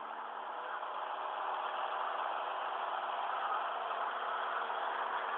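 Light aircraft's piston engine and propeller droning steadily, heard inside the cabin; it grows slightly louder over the first couple of seconds.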